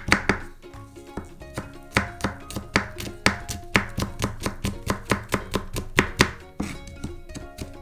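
Chef's knife mincing garlic cloves on a plastic cutting board: quick, uneven knife strikes against the board, several a second. Background music plays underneath.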